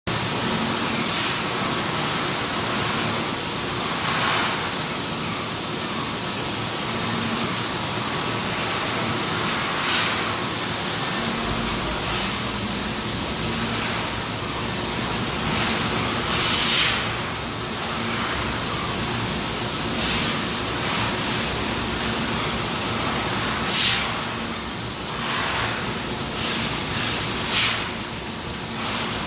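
Automatic electrostatic powder coating guns on a reciprocator spraying powder: a steady, even hiss of air-carried powder, with a few brief louder spurts in the second half.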